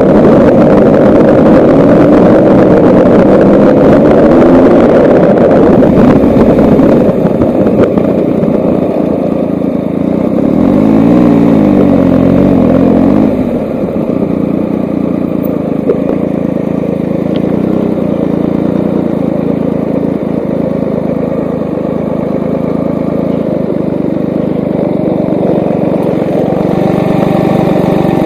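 Triumph motorcycle engine running while the bike rides on gravel, with wind and tyre noise over it. About halfway through, the engine note rises and falls as the bike rolls to a stop, then it settles into a steady idle.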